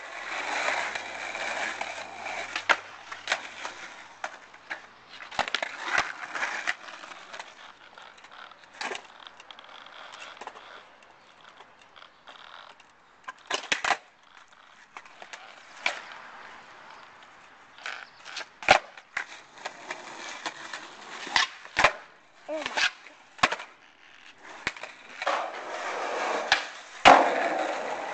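Skateboard wheels rolling over pavement, with many sharp clacks of the board popping and landing during tricks. The rolling is strongest at the start and near the end, and the loudest clacks come in the second half.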